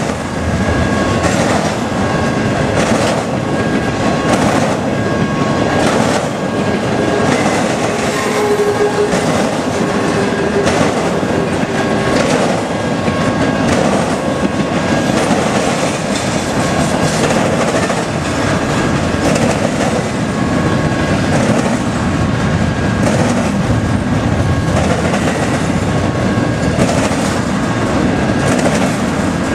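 Double-stack container freight train rolling steadily past, its wheels clicking over the rail joints, with a grade-crossing warning bell ringing about once a second.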